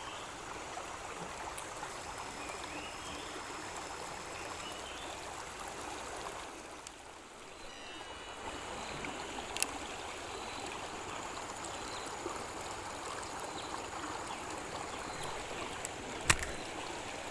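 Steady rush of fast-flowing river water, with two sharp clicks about ten and sixteen seconds in.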